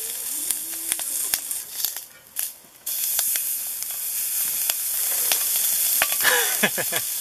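A thick block of meat sizzling on a hot griddle plate over a small camp stove, a steady fat hiss with frequent sharp pops. The sizzle drops off briefly about two seconds in, then comes back stronger about three seconds in as the block is set down again on a fresh side.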